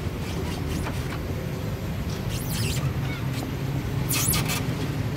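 Outboard motor running steadily, pushing a small aluminium boat along, with a couple of brief high-pitched sounds about two and a half and four seconds in.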